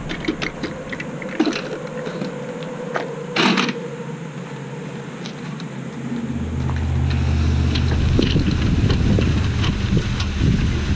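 Clicks, knocks and a short scrape from a truck camper's manual roll-out awning hardware as it is unlatched and pulled out. A low steady hum comes in about six seconds in.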